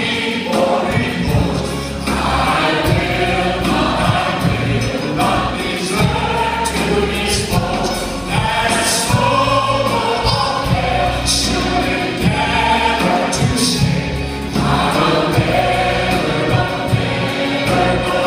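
Large church choir singing a gospel song in full voice over instrumental accompaniment, with sustained bass notes that change every couple of seconds.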